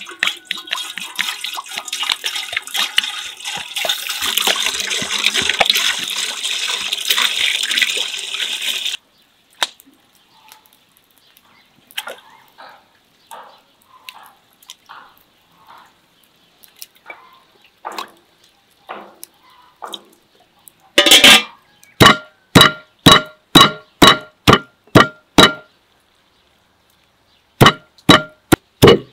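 Water poured from a jug into an aluminium cooking pot, a steady splashing that stops abruptly about nine seconds in. Then faint scattered taps, and later a cleaver chopping raw meat on a wooden log block: quick, even strikes, about two or three a second, each with a short metallic ring, pausing for about two seconds before a second run.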